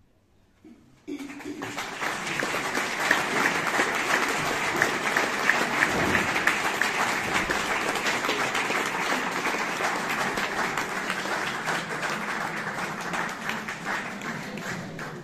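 Audience applause, breaking out about a second in after a brief hush, with many hands clapping, tapering a little near the end.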